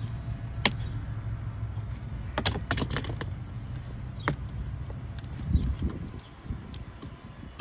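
Sharp plastic clicks and snaps as a utility knife trims the mounting tabs off a black plastic bumper diffuser: one about half a second in, a quick cluster around two and a half to three seconds, another just after four seconds. A steady low rumble runs beneath and drops away after about five and a half seconds, with a dull thump there.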